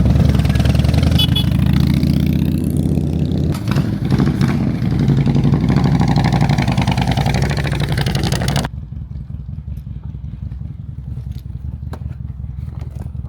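Motorcycle engine running loud and revving. About two-thirds of the way through, the sound cuts abruptly to a quieter, steady engine drone.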